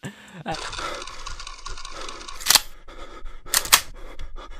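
Three loud, sharp clicks over a steady hiss: one about two and a half seconds in, then two close together near the end.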